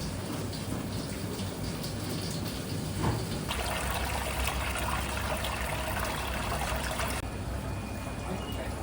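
Running water, with a shift in its sound about three and a half seconds in and again near the end.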